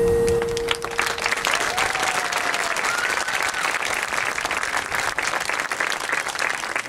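Crowd applauding, with clapping starting about a second in as a marching band's last held chord dies away.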